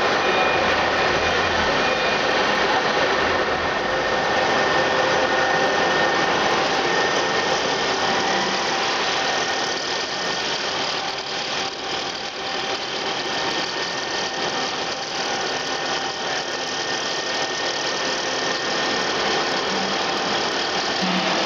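Rice processing machine running steadily, a dense mechanical whirr with faint steady whine tones, easing a little in level about halfway through.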